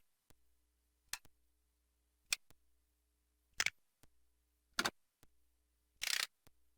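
Short, sharp click sound effects from an LG KH1000 Cyon mobile phone's Yamaha MA-5 sound chip, played one after another about every 1.2 seconds, six in all; the one near the end lasts a little longer.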